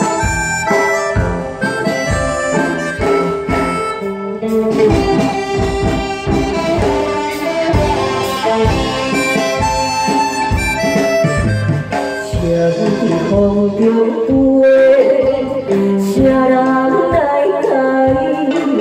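Live band playing an instrumental break in a Hokkien pop song: a held lead melody over a steady drum beat.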